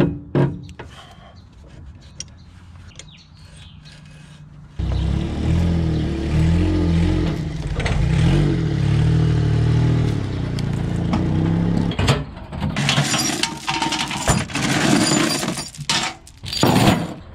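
A few light metallic clicks from a wrench on a tie-rod adjuster. About five seconds in, a small engine cuts in running steadily, its pitch wavering up and down a little. From about twelve seconds on it gives way to loading chains clanking and rattling and metal knocking on the trailer.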